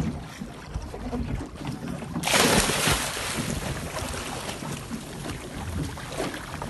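Sea water splashing and wind buffeting the microphone, with a sudden loud rush of water about two seconds in that dies away slowly.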